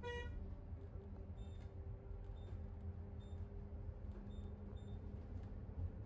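Steady low engine and road rumble of a moving bus heard from inside the cabin, with a short vehicle horn toot right at the start. Faint high beeps sound a few times in between.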